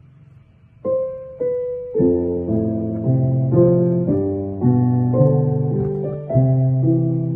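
Background piano music: after a quiet first second, two single notes sound, then a melody with chords starts about two seconds in.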